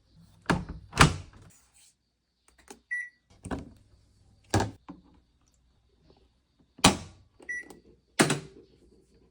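Washing machine being readied to run: a series of loud clunks, with two short high beeps from its control panel.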